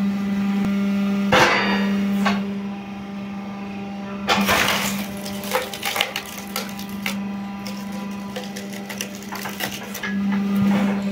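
A motor-driven log splitter runs with a steady hum while logs crack and splinter as they are forced apart. The cracking comes just over a second in and again, louder, about four seconds in, followed by scattered sharp snaps of wood.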